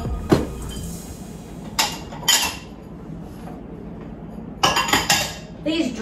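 Dishes and cookware clattering as they are handled and put away in a kitchen cabinet: a sharp clink soon after the start, then bursts of clatter about two seconds in and again near the end.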